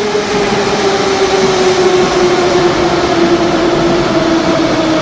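Moscow Metro train running at the platform: a steady rumble of wheels and running gear, with a motor whine that falls slowly in pitch.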